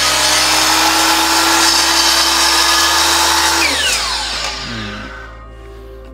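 A DeWalt miter saw runs at full speed, its blade cutting across a glued-up hardwood cutting board blank to trim the edge square. About four seconds in the trigger is released, and the motor's whine falls in pitch and fades as the blade spins down.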